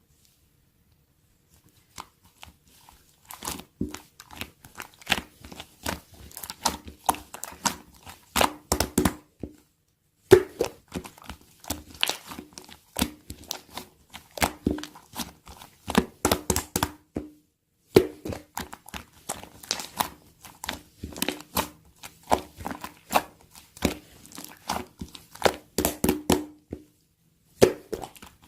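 Pearl slime being squished, folded and stretched by hand, giving rapid runs of small clicks and crackles in several bouts with brief pauses between them.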